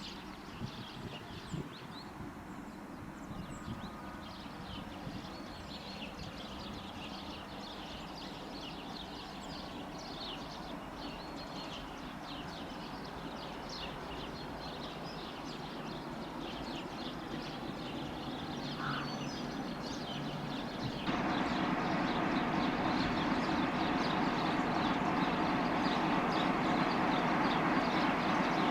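Small birds chirping over the sound of an approaching train, which grows slowly louder and then steps up sharply about three-quarters of the way through.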